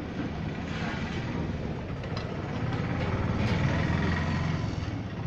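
Street traffic rumbling, swelling to its loudest about three to four seconds in as a vehicle passes close by.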